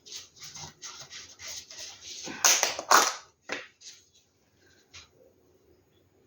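A run of short scraping and rubbing noises from handling paint cups and bottles while pouring acrylic paint onto a canvas, loudest about two and a half to three seconds in, then dying down to a few faint knocks.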